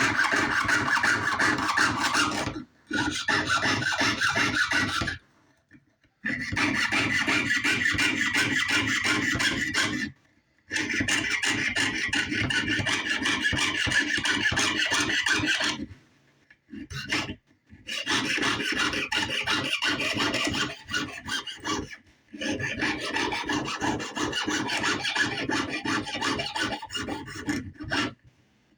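Rapid back-and-forth rasping of a jeweller's hand tool cutting and shaping a small metal feather for a buckle. It comes in runs of a few seconds broken by short pauses.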